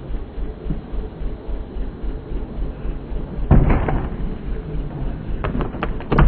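Low wind rumble on the microphone, then about three and a half seconds in a skateboarder's body slams onto the wooden mega ramp wall and skids down it in a loud burst of about half a second. A few sharp knocks follow near the end.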